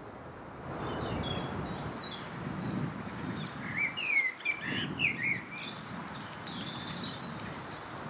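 Common blackbird singing: several short warbling phrases, loudest about halfway through, over a steady low background rumble.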